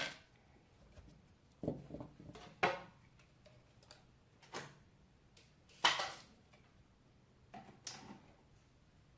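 Small hard objects being handled and set down on a workbench: a series of separate clicks and clatters, the loudest about six seconds in.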